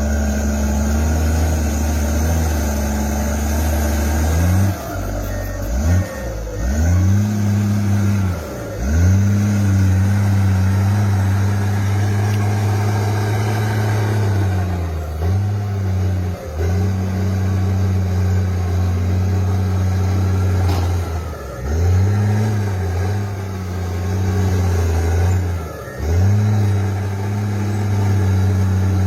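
Bulldozer's diesel engine running hard under load, its steady note dipping and climbing back up several times.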